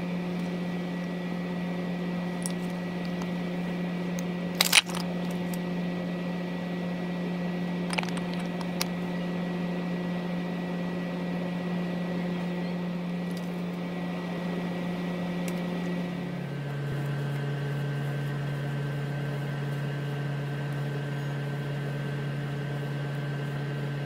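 Steady machine hum in a small room, dropping abruptly to a lower pitch about two-thirds of the way through. A few light clicks of handling, with one sharper click about five seconds in.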